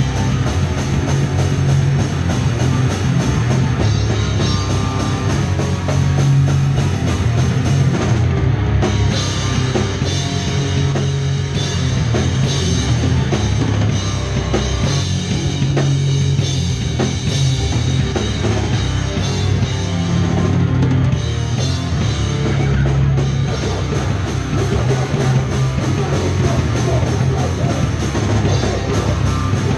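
Hardcore punk band playing live: distorted electric guitar, bass and a drum kit, loud and dense throughout.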